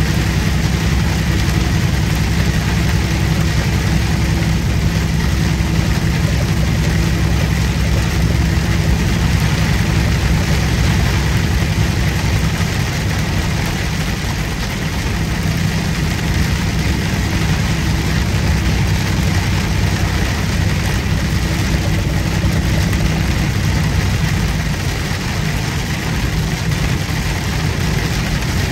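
Truck engine running with a steady low drone while driving on the highway, heard inside the cab, with a constant hiss of tyre and road noise.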